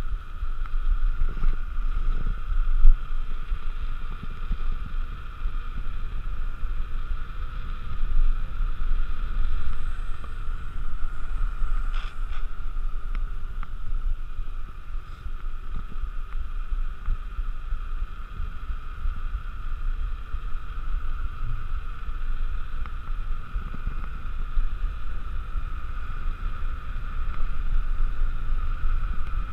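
Wind buffeting the action camera's microphone as a mountain bike coasts fast down a paved road, with a steady whir from the wheels that holds constant. A single sharp knock sounds about three seconds in.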